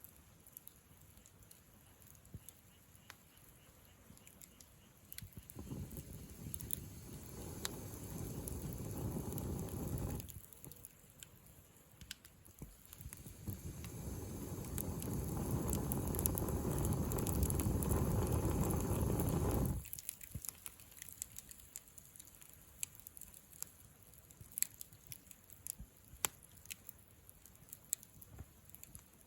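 Wood campfire crackling with scattered sharp pops and snaps. Twice, for about five and seven seconds, a loud low rushing noise swells over it and cuts off suddenly.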